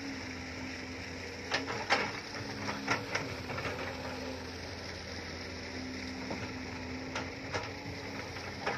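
Hitachi hydraulic excavator running as it digs dirt: its diesel engine and hydraulics give a steady hum whose pitch shifts as the arm and bucket move. Sharp knocks from the digging bucket come twice around two to three seconds in and again near seven seconds.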